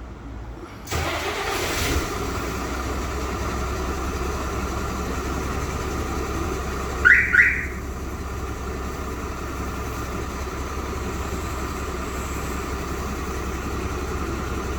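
Daewoo Prima truck's diesel engine starting by remote: about a second in it cranks and catches, then settles into a steady idle. About seven seconds in, the alarm's siren gives two quick rising chirps.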